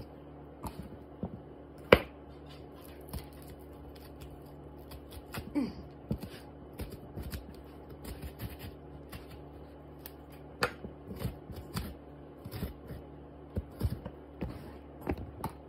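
A knife scraping the seeds and pith out of a halved bitter melon on a plastic cutting board: irregular short scrapes and clicks, with one sharp knock about two seconds in.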